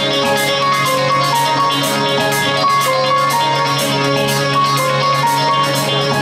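Live rock band playing: electric guitar over a steady drum beat and a held low note.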